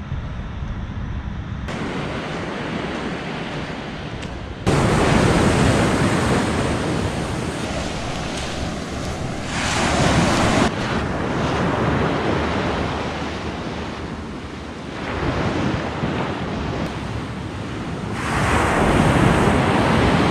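Sea surf breaking and washing onto the shore, swelling up and dying back in surges, with wind blowing on the microphone.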